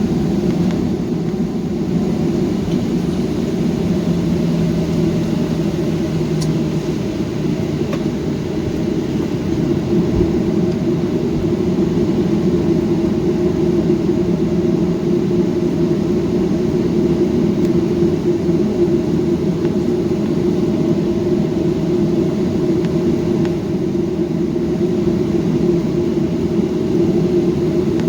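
Steady rumble of a Boeing jetliner's engines and airframe, heard from inside the passenger cabin while the plane taxis before takeoff.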